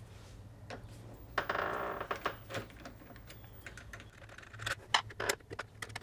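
Scattered small clicks and taps of metal and plastic lock parts being handled, with a short scrape about a second and a half in, as the old smart lock's activator unit is worked loose from the door.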